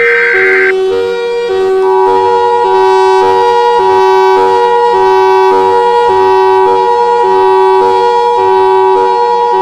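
The last burst of an Emergency Alert System SAME data header, a short rasping digital screech that ends under a second in. About a second and a half in, the EAS attention signal starts: its steady two-tone 853/960 Hz chord sounds continuously. Throughout, a second tone alternates between a lower and a higher pitch about every half second.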